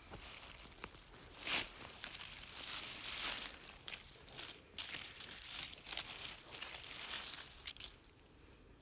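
Irregular rustling and crinkling in short noisy bursts, loudest about a second and a half in, dying away near the end.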